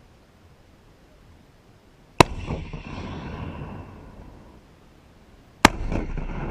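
Two blasts from an M3 Carl Gustav 84 mm recoilless rifle, about two and five and a half seconds in. Each is a sharp crack followed by a long rolling rumble that fades over a couple of seconds.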